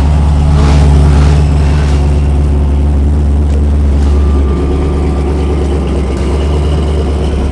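A drag car's engine idling steadily close by, loud and deep, holding one pitch throughout.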